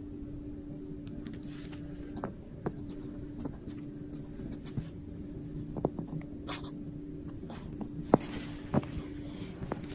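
Small dog playing: scattered light taps and scuffles over a steady low hum.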